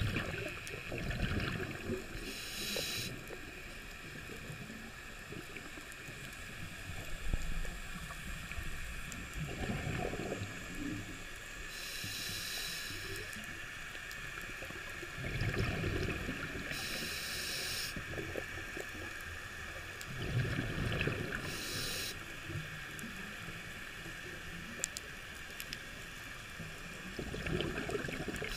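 Scuba regulator breathing underwater: five short hissing inhales through the regulator, with low bubbling rumbles of exhaled air between them.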